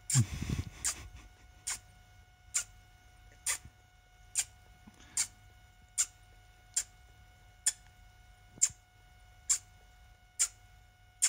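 A toddler blowing kisses over and over, a short, sharp lip smack about once a second, with the first one louder and longer.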